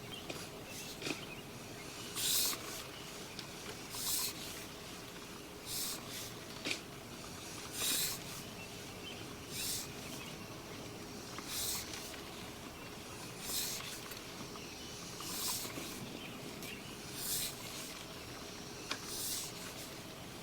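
Sewer push-camera cable being fed by hand down a PVC lateral: short hissing rubs about every two seconds over a faint steady electrical hum.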